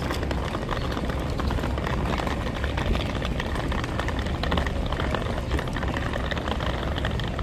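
Steady low rumble of wind on a phone microphone over the noise of a busy open square, with scattered light clicks and knocks.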